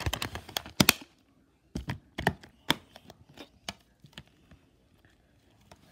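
Sharp clicks and taps from a plastic DVD case being handled, a quick run of them in the first second, then a few scattered clicks.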